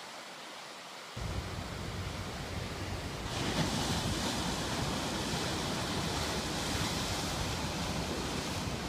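Ocean surf: small waves breaking and washing in whitewater over rocks, with wind on the microphone. A faint hiss for about the first second, then the surf comes in, growing louder and brighter about three seconds in.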